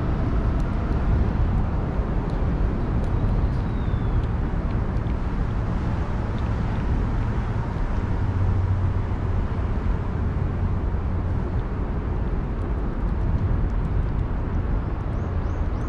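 Steady low rumble of distant city traffic, with faint small clicks as a cat licks and chews wet food from a metal dish. Near the end a bird starts a quick run of chirps.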